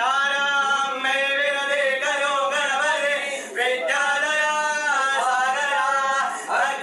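A male Hindu priest chanting mantras in a sung voice, in long held phrases with short breaths between them: about halfway through and again near the end.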